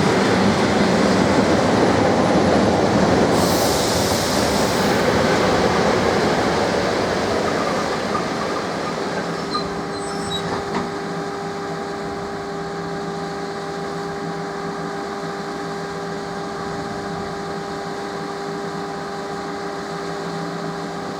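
ET2M electric multiple unit running on the track, its rolling noise fading after about eight seconds into a quieter steady hum. There is a short hiss about three seconds in.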